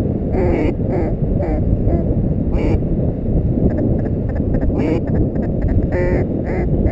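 Steady wind rumble on the microphone, with several short duck-like quacking calls scattered through it, the clearest about six seconds in.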